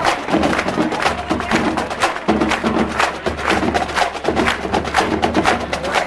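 Marching band drumline playing a cadence: sharp, rapid snare and stick strikes in a steady rhythm over a low drum pulse.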